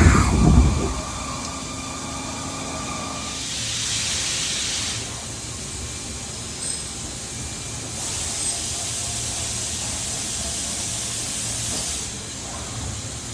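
Okuma MA-40HA horizontal machining center running: a heavy clunk right at the start and a steady whine for the first few seconds. A burst of hiss follows about four seconds in, then steady machine hum.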